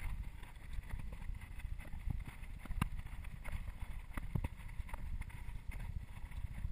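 Wind rumbling on a body-worn camera's microphone, with scattered light knocks and taps as hands and shoes grip a metal railing and wooden bridge planks while climbing.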